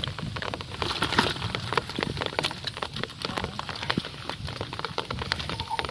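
Live fish (climbing perch, gourami and small snakeheads) flapping and wriggling in a plastic bucket with a little water, making irregular quick wet slaps and taps.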